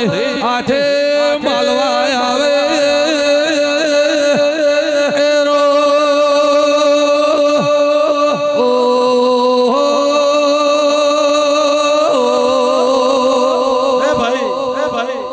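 Devotional chanting (a dhun) sung in long, ornamented, wavering notes over a steady held drone. The pitch steps down briefly about nine seconds in, then returns.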